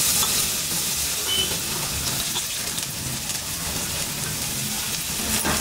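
Chopped garlic, ginger and green chillies sizzling steadily as they are dropped into hot oil in a kadhai: an even, high-pitched hiss.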